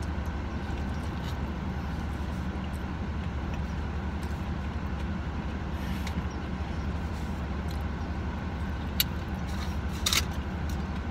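Steady low hum of a car's engine idling, heard from inside the cabin. A sharp click comes about nine seconds in, and the foil burrito wrapper crinkles briefly a second later.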